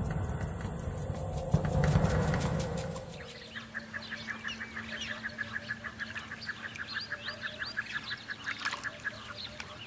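A low drum-like rumble in the first three seconds gives way to a flock of garganey ducks calling: a fast, even rattle of notes with many higher chirps over it.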